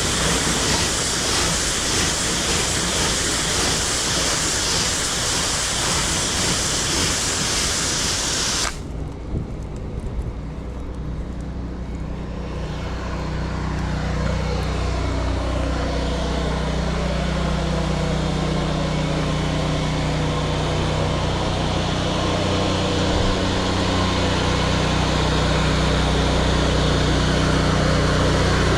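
Pressure washer at work: a loud hissing water jet over the steady hum of the washer's motor. About nine seconds in the spray hiss cuts off suddenly, leaving the motor running on its own, then the hiss gradually builds back.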